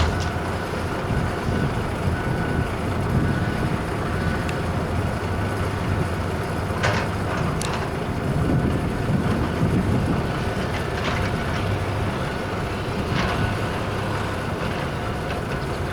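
Heavy construction machinery, such as a big crane's diesel engine, running steadily with a low rumble. A few sharp metallic clanks sound from the site partway through.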